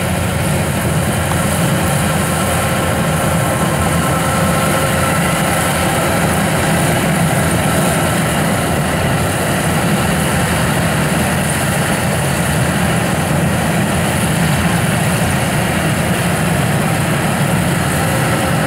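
Yanmar AW1000V combine harvester running steadily under load while cutting rice, its engine and threshing mechanism making a continuous, even machine drone.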